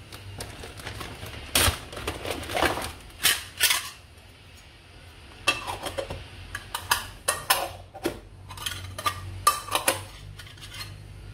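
Metal lids clinking and clattering as they are fitted onto small metal moi moi cups, a run of irregular sharp clinks with a few louder clacks.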